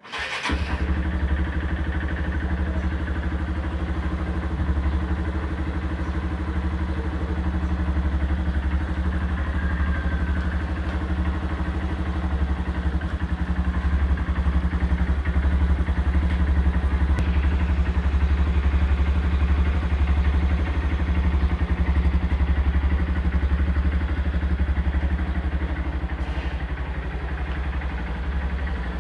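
Honda New Megapro motorcycle's single-cylinder engine starting up and then idling steadily.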